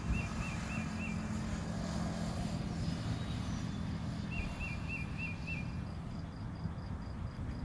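Steady low rumble of road traffic, with a bird calling a quick run of five or six chirping notes, about four a second, once near the start and again about halfway through.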